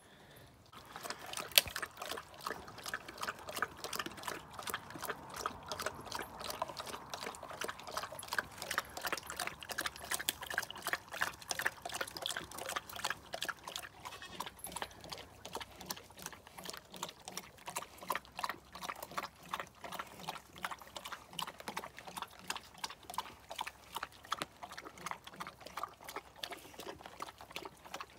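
Great Pyrenees gnawing and crunching a turkey bone: an irregular run of cracks, crunches and wet chewing, with one sharp crack about a second and a half in.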